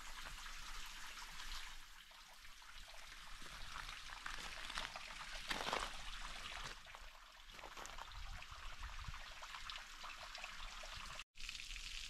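Faint water trickling over the stepped rock ledges of a small, nearly dry waterfall, a soft even hiss with scattered small drips.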